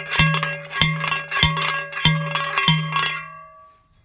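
Steel T-post being driven into the ground with a post driver: five evenly spaced ringing metal clangs, about one every 0.6 seconds, stopping about three seconds in.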